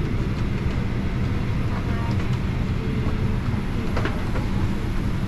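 Steady low rumble of a Boeing 737-800's cabin, with a faint click about four seconds in.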